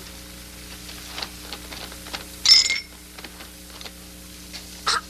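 Two champagne glasses clinking together once, a bright ringing clink about two and a half seconds in, over faint ticking and a steady low hum. A brief sharp sound comes near the end.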